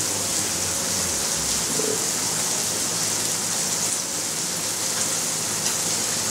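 Electric fan running, a steady hiss of blowing air.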